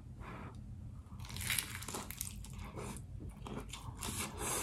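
A person biting into a fried chicken pot pie egg roll and chewing the wrapper, a string of crackly crunches with the loudest about a second and a half in.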